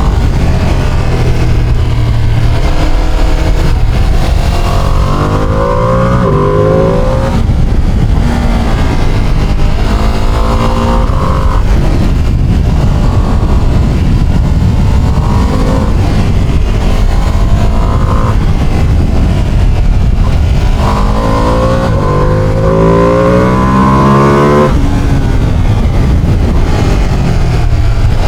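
Ducati Panigale motorcycle engine and exhaust under acceleration while riding, the pitch climbing in several runs and dropping back at each gear change, the longest climb near the end.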